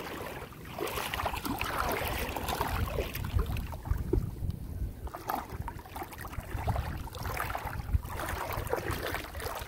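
Bare feet wading through shallow water, with an irregular sloshing and splashing of the steps and wind rumbling on the microphone.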